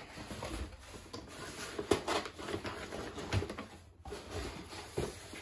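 Cardboard box being opened and handled: the lid and flaps scraping and rustling, with a few light knocks.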